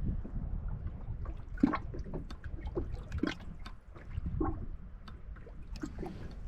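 Water splashing and trickling with several sharp knocks, the loudest about a third and halfway through, over a low steady rumble.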